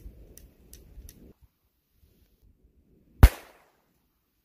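A single gunshot from a .22 rimfire revolver, a sharp crack about three seconds in, firing at long range. It comes after a few faint metallic clicks in the first second or so.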